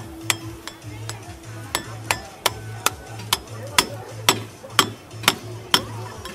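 A metal spatula clinking against a steel griddle in a steady rhythm, sharp ringing taps about twice a second.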